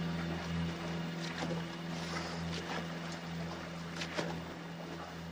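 Steady low hum of a boat's engine running at idle over the wash of the sea, with a few faint clicks and knocks, the sharpest about four seconds in.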